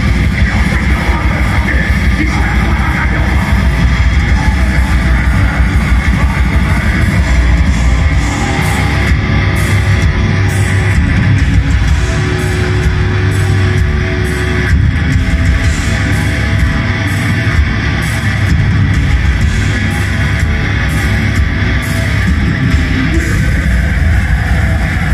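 Black metal band playing live: loud distorted electric guitars with bass and drums in a dense, continuous wall of sound, with a held note through the middle stretch.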